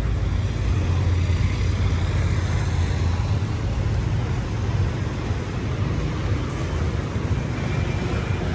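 Steady city street ambience: a continuous low rumble of road traffic.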